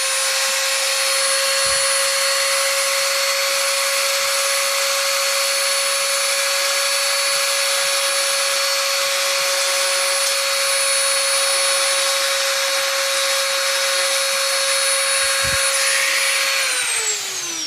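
High-speed rotary tool grinding away at a toy car's fender, running at a steady high whine. Near the end it is switched off, and the whine falls in pitch as the motor spins down.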